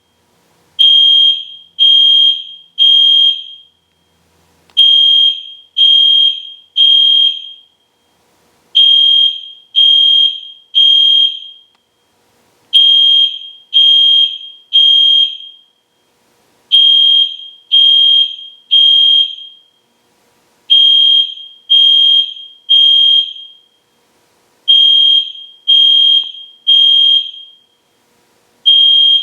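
EST Genesis fire alarm horn sounding at full volume in a temporal-three evacuation pattern: three loud, high-pitched beeps about a second apart, then a short pause, repeating every four seconds.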